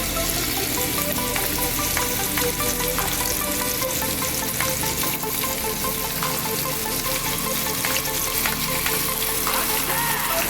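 Chicken sizzling as it cooks, a steady frying sizzle with scattered small pops and crackles.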